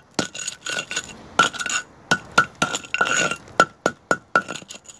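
Brick hammer striking a concrete Allan Block wall cap to break out the saw-cut notch: a series of sharp, ringing metal-on-concrete taps. They come unevenly at first, then settle into a steady run of about four a second near the end.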